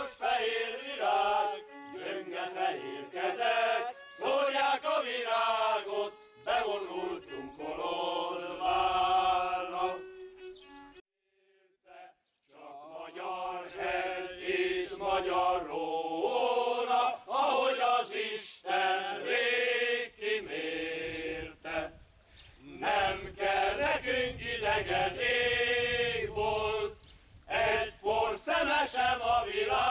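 Men's choir singing a Hungarian song, breaking off about ten seconds in for a pause of two seconds before starting again.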